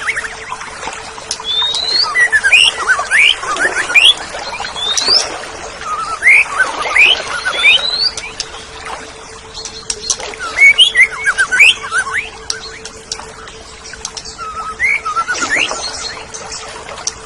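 Oriental magpie-robin (kacer) singing: groups of quick, varied whistled notes sweeping up and down, one group every couple of seconds. A faint steady hum runs underneath.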